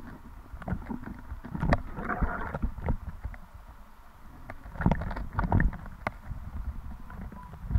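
Muffled underwater sound heard through a camera's waterproof housing: a low rumble of moving water with irregular clicks and knocks. The knocks bunch up about two seconds in and again around five seconds.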